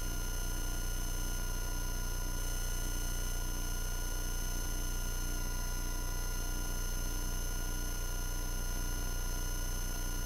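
Steady electrical hum with several constant whining tones, the kind of noise an aircraft's audio or intercom feed picks up. A fainter low tone pulses on and off about one and a half times a second throughout.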